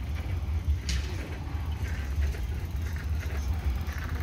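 Outdoor city street ambience: a steady low rumble with faint distant voices, and a brief hiss about a second in.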